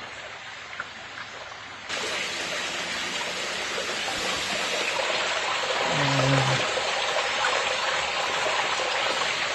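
Flood coolant running and splashing through a homemade chip conveyor, a steady rushing, trickling water sound that jumps abruptly louder about two seconds in.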